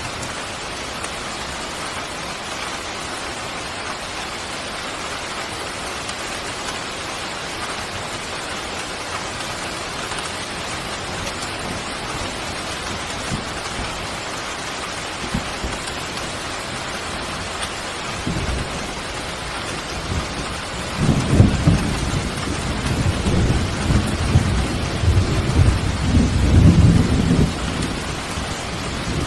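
Steady rain falling, with a long low roll of thunder building in the last third and dying away near the end.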